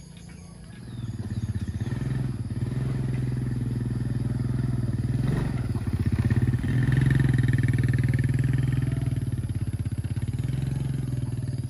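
A small engine running steadily with a low, even drone. It starts about a second in and gets a little louder around the middle.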